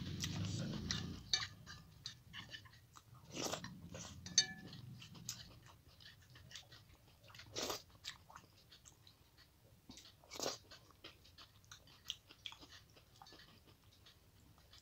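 Close-up eating sounds: hand-eaten rice and tomato chutney being chewed, with soft wet mouth noises and a few sharp clicks.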